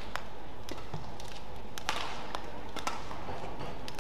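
Badminton rally: sharp cracks of rackets striking the shuttlecock and the players' footsteps on the court, with the loudest hit about two seconds in.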